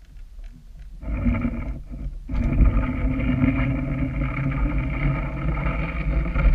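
Boat motor heard underwater, a steady pitched drone over a low rumble that starts about a second in and drops out briefly before running on steadily.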